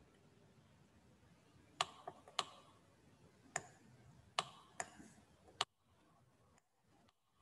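Faint, sharp clicks at a computer, seven of them at uneven spacing, starting about two seconds in.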